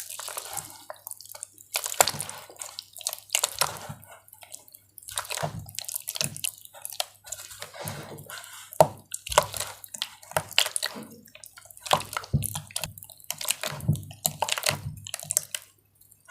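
Water-soaked gym chalk and cornstarch being crushed: a dense, irregular run of wet, crumbly crunches and crackles.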